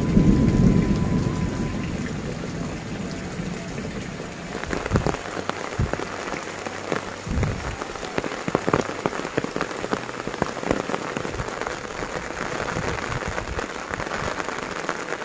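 Steady rain falling, with a low rumble of thunder dying away over the first few seconds. After that, single heavy drops splash close by over the hiss of the rain.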